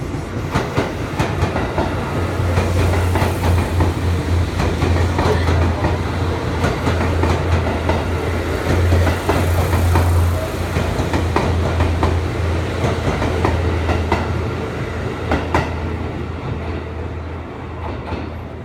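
Seibu Railway electric train running past the platform, wheels clacking over rail joints with a steady low hum, easing off slightly near the end.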